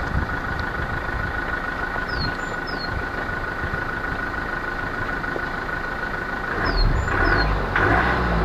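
Toyota Avensis D4D turbodiesel engine running, with a steady high-pitched turbo whistle over the engine note. The engine grows louder near the end.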